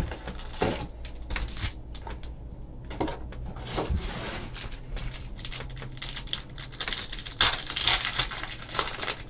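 Plastic wrapping on a trading card box and its packs being torn open and crinkled, with scattered sharp rustles and cardboard handling. The longest, loudest tear comes near the end.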